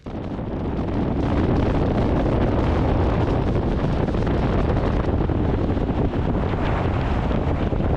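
Wind rushing over the microphone with the low rumble of a vehicle driving at speed, cutting in abruptly and then running steady and loud.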